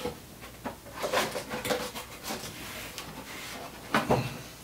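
Cardboard box being opened by hand: irregular scrapes and rustles of the flaps, with a louder knock about four seconds in.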